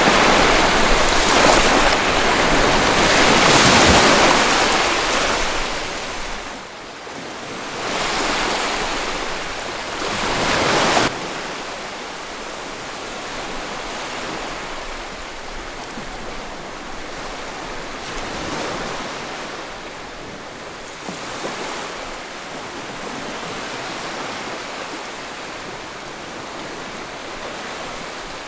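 Ocean waves breaking and washing up the shore. Two loud surges come in the first eleven seconds, the second cutting off suddenly, and then a softer, steady wash follows.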